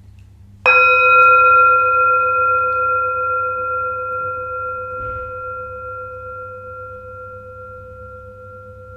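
A meditation bell struck once, about a second in, ringing with several steady tones that fade slowly and are still sounding at the end.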